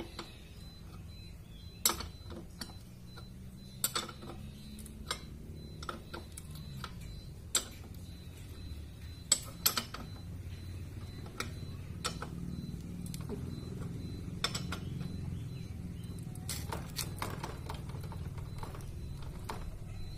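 Sharp metal clinks and taps, single and a second or more apart, bunched more closely near the end: hand tools and loose parts knocking against a motorcycle's rear drive chain and sprocket as it is worked on. A low steady rumble lies underneath.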